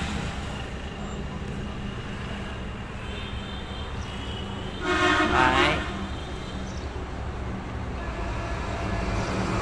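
Steady low outdoor background rumble, like distant road traffic. About five seconds in, a brief pitched sound with a wavering pitch rises above it for under a second.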